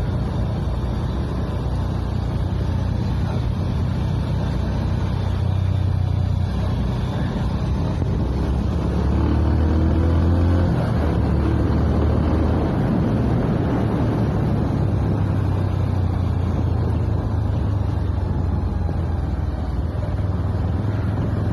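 Wind rushing over the microphone of a moving motorbike, with the bike's engine running underneath at a steady pace; the engine pitch shifts briefly about ten seconds in.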